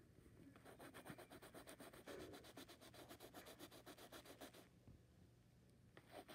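Colored pencil shading on paper in quick back-and-forth strokes: a faint, rapid scratching of about ten strokes a second. It stops about four and a half seconds in and starts again near the end.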